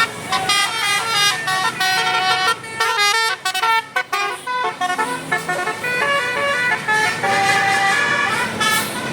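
Tour bus's Basuri telolet musical air horn playing a fast tune of short notes that step up and down in pitch.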